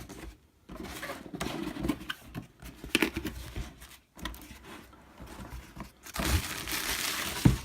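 Packaging being opened by hand: scattered rustling, scraping and tapping, then about six seconds in a louder stretch of crinkling and tearing, ending with a knock.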